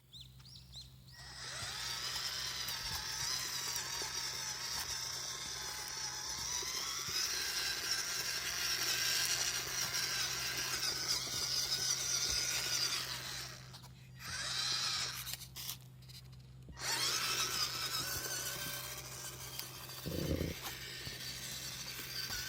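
WPL C24 RC truck's small brushed electric motor and gearbox whining as it drives, the pitch rising and falling with the throttle. It cuts out briefly twice about two-thirds of the way through.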